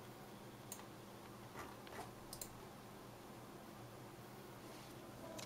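Four or five faint clicks in the first half, over a low steady hum.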